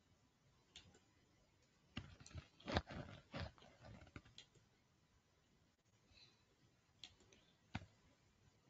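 Scattered computer mouse clicks over near silence, with a quick run of louder clicks and knocks from about two to four seconds in.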